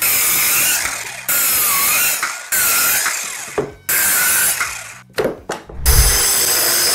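WORX and WEN cordless mini circular saws cutting through a 4x4 block: a high motor whine over the noise of the blade in the wood, its pitch dipping and recovering under load. The sound comes in several stretches, each starting suddenly, with a few sharp clicks about five seconds in before a steadier run.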